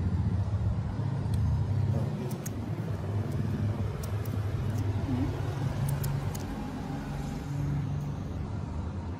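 A low, steady rumble of background noise, with a few faint ticks scattered through it.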